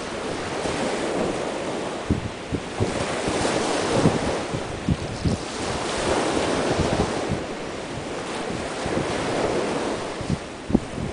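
Small waves breaking and washing up on a sandy shore, the surf swelling and fading about every three seconds. Wind buffets the microphone in short low thumps throughout.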